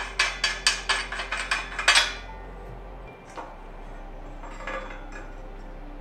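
Ratchet clicking, about five or six sharp clicks a second for the first two seconds, then two faint clicks later.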